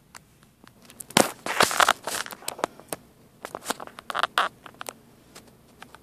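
Hard plastic scraping and clicking as a Whirlpool washer's drain pump filter is twisted back into its housing: a loud stretch of scraping about a second in, then a run of short clicks and rasps.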